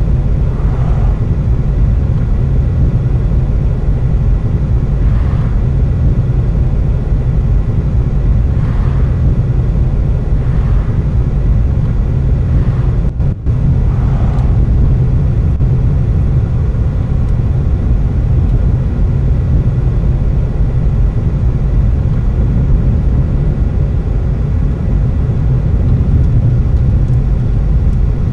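Steady low rumble of a moving car's engine and tyres, heard from inside the cabin, with several faint whooshes of oncoming vehicles passing, a bus among them near the start. The sound dips briefly about halfway through.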